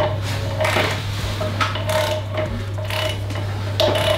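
Ratchet wrench on the crankshaft pulley bolt clicking in repeated, uneven strokes as the Audi five-cylinder's crankshaft is turned by hand through its second full rotation, to check that the freshly set timing marks still line up.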